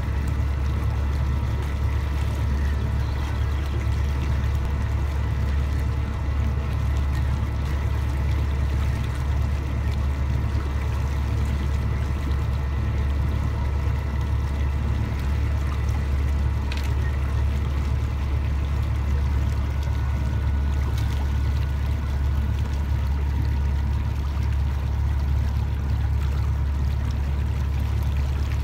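Boat engine running steadily at low cruising speed, a deep even hum, with water washing past the hull.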